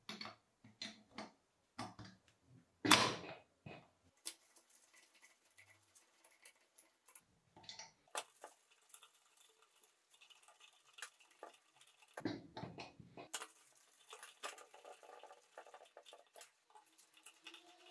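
Metal hand tools and bracket hardware clinking and tapping on a moped engine's aluminium cylinder head as a mounting bracket is fitted and its nuts worked with a socket. There are sharp clicks in the first few seconds, quieter scraping and ticking after that, and a duller knock about twelve seconds in.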